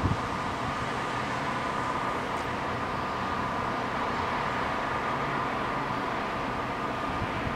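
Steady road traffic: an even hiss of car tyres on a wet road, with a faint steady hum.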